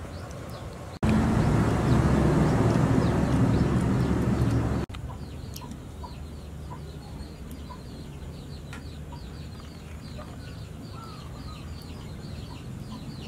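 Chickens in the background: many thin, high, falling peeps repeating several times a second, with occasional short clucks. A loud rushing noise starts abruptly about a second in and stops just as abruptly near five seconds.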